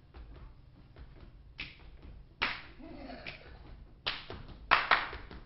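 Dancers' hand claps and body slaps in an uneven rhythm: soft clicks at first, then several loud, sharp claps ringing in the hall, the loudest pair near the end.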